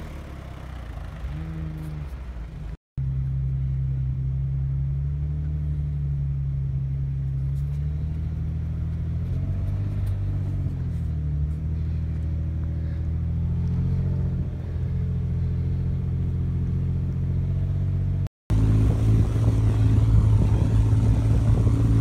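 Off-road 4x4 engines driving through deep snow. A long stretch of steady engine drone from the vehicle being driven, its pitch rising and falling with the throttle, then a louder engine near the end, with two brief cut-outs to silence where the shots change.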